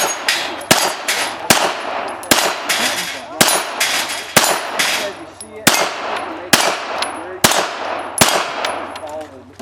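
Pistol fired in steady aimed succession, about a dozen shots roughly one every three-quarters of a second, each with a short echo.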